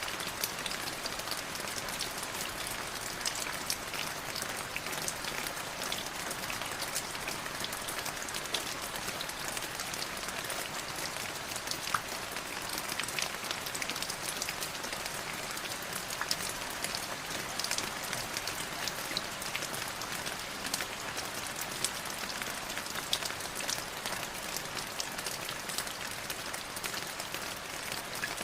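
Light drizzle falling steadily, a continuous hiss of rain with many small separate drop ticks scattered through it.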